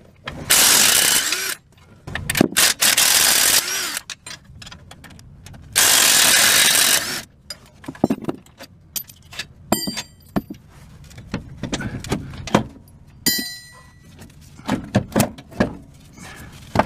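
Cordless impact wrench hammering out the 19 mm mounting bolts of a Nissan Xterra steering box in three bursts over the first seven seconds. After that, metallic clinks and rattles as the loosened bolts and nuts are pulled out and handled.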